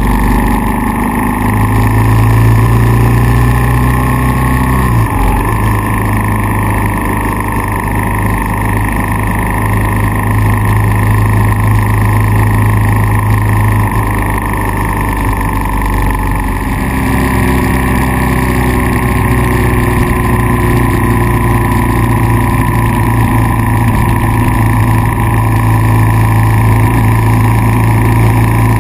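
Kawasaki KLR650's single-cylinder four-stroke engine running steadily. Its note changes abruptly about five seconds in and again around seventeen seconds.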